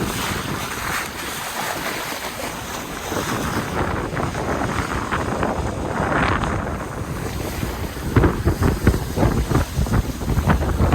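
Wind buffeting the microphone over the rush and splash of water alongside a sailboat under way. The buffeting grows heavier and more gusty about three quarters of the way through.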